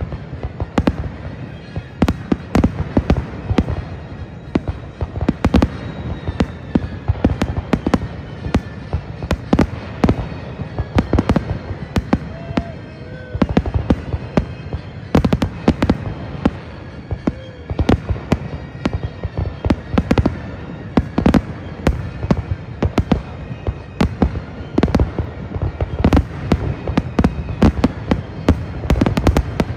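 Fireworks display with aerial shells launching and bursting in quick succession, a dense run of bangs and crackles, several a second, that never lets up.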